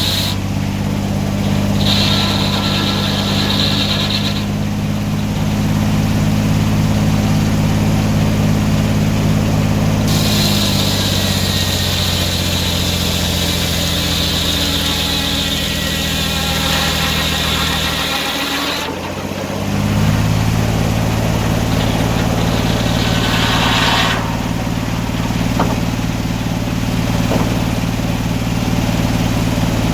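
Sawmill engine running steadily under a homemade governor. Its pitch sags about a third of the way in, then dips sharply about two-thirds in and recovers, as under cutting load. A high hiss comes and goes over the engine.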